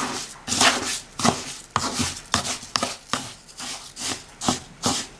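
Wooden spoon stirring and scraping dry couscous semolina in a wooden bowl: a rhythmic run of short scrapes, about three a second.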